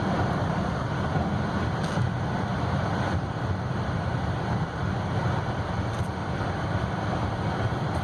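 Steady road and tyre noise heard inside the cabin of a 2016 Buick Envision while it is driven, a low rumble with a faint tick now and then.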